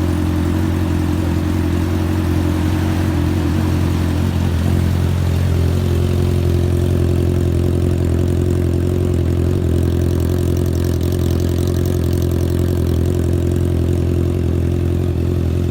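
2021 Honda CB650R's inline-four engine running steadily at idle through a full-system aftermarket exhaust, a deep even note with no revving.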